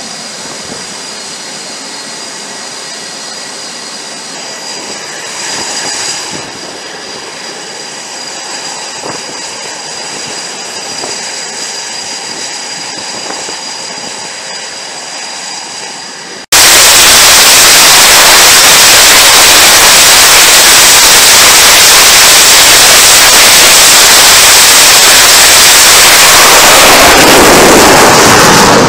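Super Hornet-family jet engines running with a steady whine and thin high turbine tones. About sixteen seconds in, this cuts abruptly to a very loud, steady jet noise of engines at high power.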